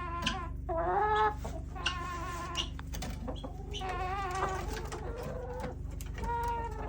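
Backyard chickens making a series of drawn-out, wavering calls and clucks, several overlapping, over a steady low hum.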